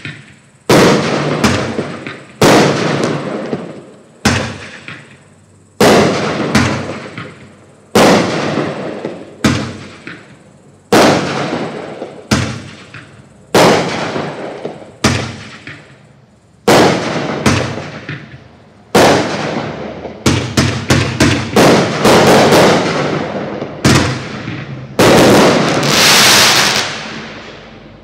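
Black Cat Hot Mama 500-gram consumer fireworks cake firing its shots one after another, each a sharp bang that fades away. The bangs come about every one to two seconds at first, quicken into a rapid string partway through, and end in a dense, continuous burst of shots near the end.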